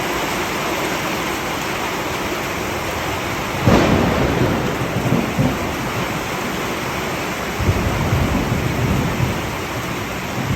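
Thunderstorm: steady rain with a sudden sharp clap of thunder about three and a half seconds in, rumbling on for a couple of seconds, and a second low rumble of thunder later on.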